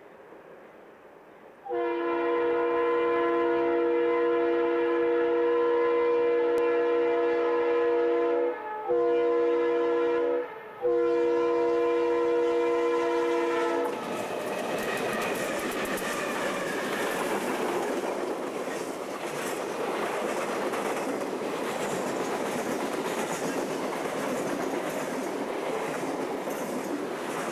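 Diesel freight locomotive's multi-chime air horn sounding for the grade crossing: a long blast, a brief one, then another long blast that stops about halfway through as the locomotive reaches the crossing. Then the locomotives and loaded freight cars rolling past, a steady rushing rumble with clickety-clack from the wheels on the rail joints.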